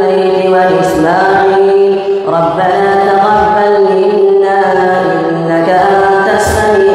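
A young imam recites the Quran aloud in a melodic chant through a headset microphone during tarawih prayer. It is one solo male voice with long held notes and gliding turns of pitch, with brief breaks between phrases about two seconds in and again near the end.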